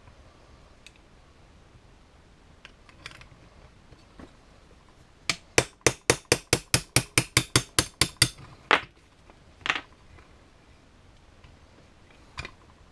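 Hammer striking metal: a quick run of about fourteen blows, some four or five a second, then three single blows spaced apart. The blows drive the loose pin out of an oven door hinge.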